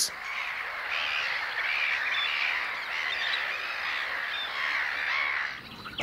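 A noisy gull colony: many birds calling at once in a dense, overlapping din, fading out near the end.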